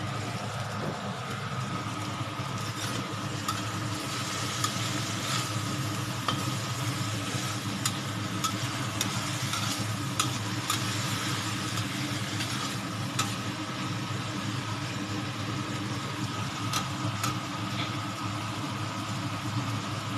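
Pork pieces sizzling in a wok with freshly added soy sauce, as a spatula stirs and scrapes them, clicking against the wok at irregular intervals. A steady low hum runs underneath.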